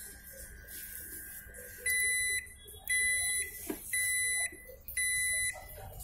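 Microwave oven's electronic beeper sounding four half-second beeps, about one per second, the alert at the end of a heating cycle. A faint steady high tone cuts off just before the beeps begin.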